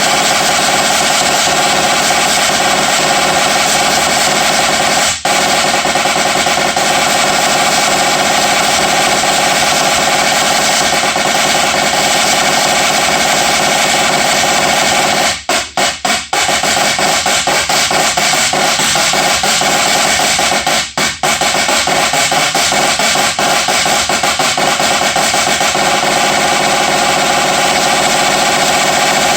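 Loud drum solo of fast, nearly unbroken rolls and rapid strokes, with a few brief breaks about 5 seconds in, around 16 seconds in and about 21 seconds in.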